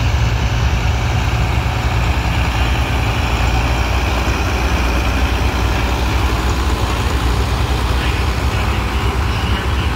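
Allis-Chalmers 200 tractor's diesel engine running as the tractor drives slowly past: a steady, low engine drone that stays even throughout.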